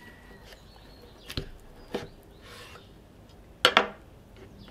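A chef's knife knocks against a wooden end-grain cutting board as it finishes cutting through a smoked brisket pastrami, with two short knocks about a second and a half apart. About three and a half seconds in comes the loudest sound, a sharp double clatter as the knife is laid down on the board.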